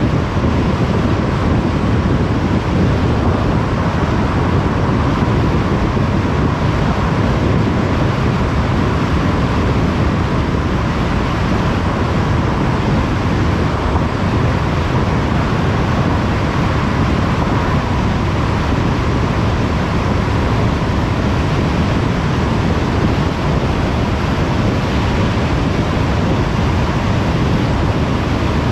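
Steady road noise of a car cruising on a motorway: tyre and wind noise, with a faint steady hum.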